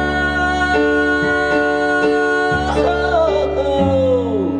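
Male singer performing live over instrumental backing, holding long notes. His voice slides downward near the end.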